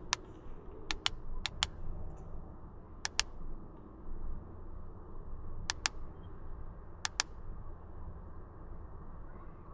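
Button clicks on a Cobb Accessport handheld tuner as it is scrolled through the tune menu: about six sharp press-and-release click pairs at uneven intervals, over a faint steady low hum.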